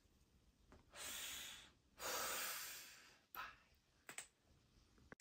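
Two soft breaths, the second a longer exhale, followed by a couple of faint clicks of the camera being handled.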